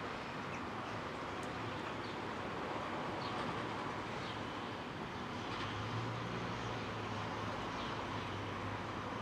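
Steady distant city noise with short bird chirps now and then. A low engine hum joins a little past halfway.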